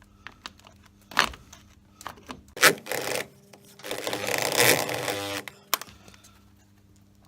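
A power driver running for about two seconds, driving a screw into the wall without a wall plug, after a few knocks as the screw and bit are handled.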